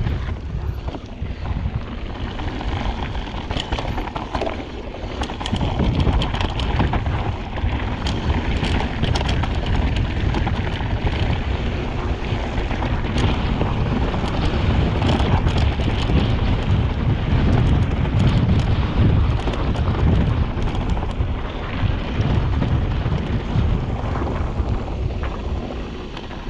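Wind buffeting the microphone and mountain bike tyres rolling over a rough dirt trail on a descent, with frequent clicks and rattles from the bike.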